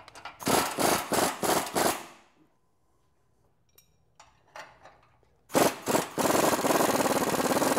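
Impact wrench with a 21 mm socket hammering on the lower control arm bolt of a Jeep Wrangler JK's axle, working the bolt loose. It runs in several short bursts over the first two seconds, then in one long steady run over the last two seconds.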